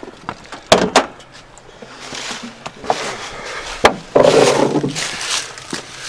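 Sharp clunks and knocks: two close together about a second in and another near four seconds, followed by a rushing noise lasting about a second and a half.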